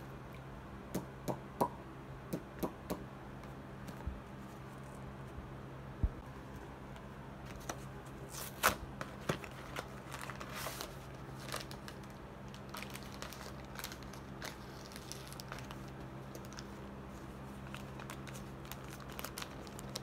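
A cardboard cornstarch box being opened by hand: a few sharp clicks and taps, then tearing of the cardboard flap and crinkling of the paper liner inside. The loudest rustles come around the middle.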